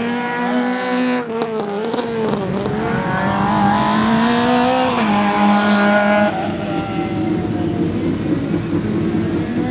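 Citroën C2 R2 Max rally car's 1.6-litre naturally aspirated four-cylinder engine revving hard as the car passes. Its pitch wavers, climbs, and drops sharply at gear changes about a second and about five seconds in. After about six seconds the sound fades as the car pulls away.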